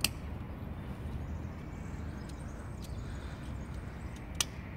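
Plastic seat-belt buckle and strap of a children's ride-on car clicking as they are handled: a sharp click at the start and another about four and a half seconds in, with a few fainter ticks between, over a low steady background rumble.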